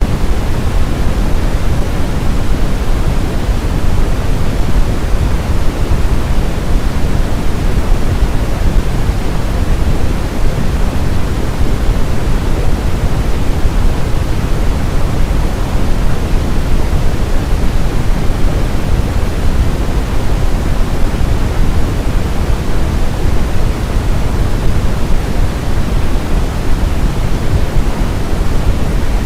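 Steady, loud, even rushing noise, heaviest in the low end and unchanging throughout. No crying voice is heard.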